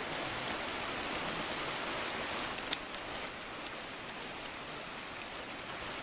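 Small, shallow mountain stream running over stones: a steady, even rushing hiss. A single sharp click about halfway through.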